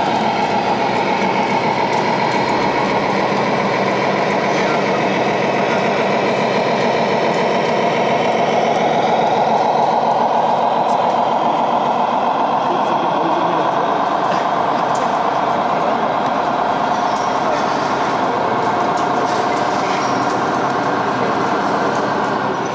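Radio-controlled model trucks and construction machines running, their electronic engine-sound modules giving a steady diesel-like drone. The pitch drifts slowly up around the middle and back down.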